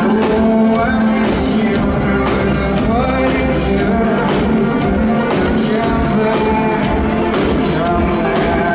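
Live band playing an electronic pop song: a male voice singing over a steady drum beat, keyboards and electric guitar, heard loud from the audience.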